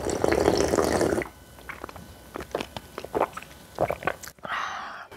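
Close-up eating sounds of naengmyeon: a loud slurp lasting about a second at the start, then scattered chewing clicks, and a second, softer slurp near the end.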